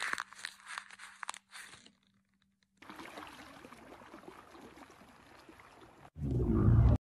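An even hiss of flowing floodwater, then near the end a loud, deep, rough camel bellow.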